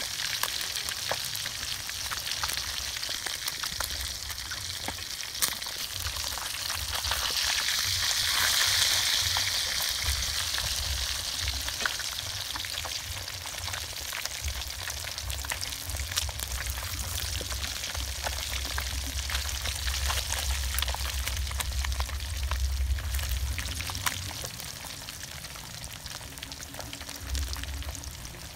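Fish frying in hot oil: a steady sizzle with scattered crackles, swelling louder for a few seconds about a third of the way in.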